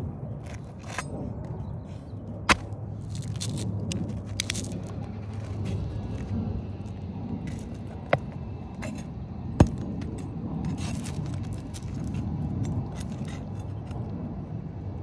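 A flat pry bar scraping and prying under 3-tab asphalt shingles as a row is taken off, with rustling and three sharp clicks at about two and a half, eight and nine and a half seconds, the last the loudest. A steady low rumble runs underneath.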